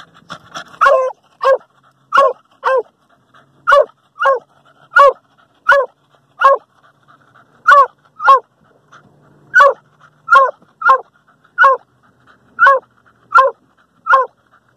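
Hunting dog barking at an armadillo holed up in its burrow, a steady run of loud barks about one every three-quarters of a second, many coming in pairs.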